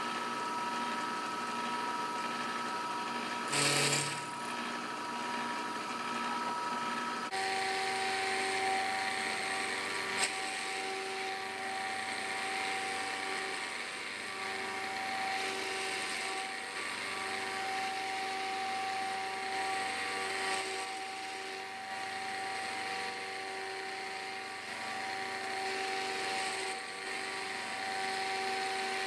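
Bridgeport milling machine cutting a steel plate with an end mill: a steady spindle whine over the hiss of the cut. The whine shifts abruptly to a lower pitch about seven seconds in, and there is a brief louder burst a little before that.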